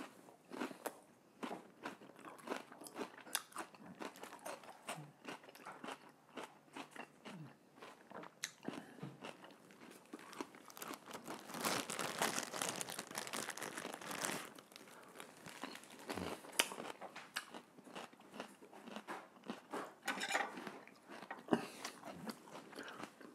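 Close-up crunchy chewing of celery, many small crunches in a row. About halfway through, a plastic bag crinkles for a few seconds.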